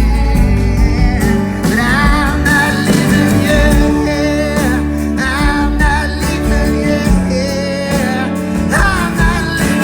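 Live band music with singing, over a steady bass; a high wavering melody line with vibrato comes in about two seconds in.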